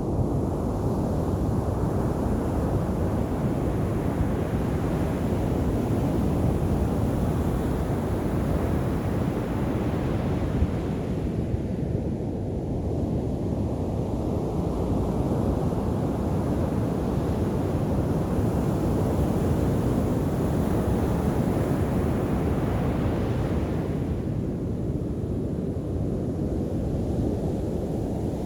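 Sea surf breaking on a beach: a steady low rumble of waves, with a hissing wash that swells and fades about every twelve seconds as each wave runs up the shore.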